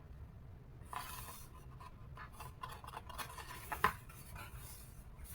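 Soft scratching and rubbing of a picture book being handled, with a few light taps, about a second in and again near four seconds.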